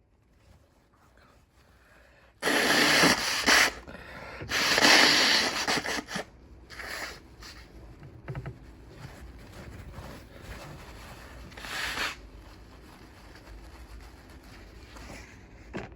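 A person blowing their nose hard: two long, loud blows starting about two and a half seconds in, then shorter, quieter blows, one about twelve seconds in.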